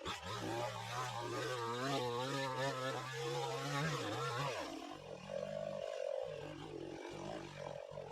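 Two-stroke gasoline chainsaw running: it revs high with a wavering pitch for about four seconds, then drops back to a steadier, quieter run.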